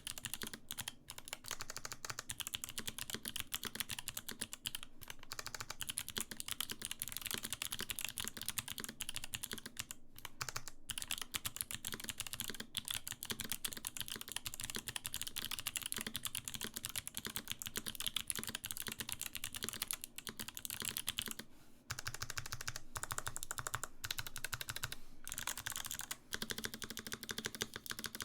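Fast, continuous typing on a custom mechanical keyboard fitted with lubed Kailh Box White clicky switches, each keystroke clicking, with a few brief pauses.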